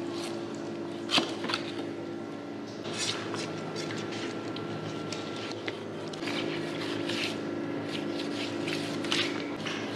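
Knife work on raw shark meat on a wooden cutting board: scattered light knocks and wet scraping of the blade and flesh, over a steady hum.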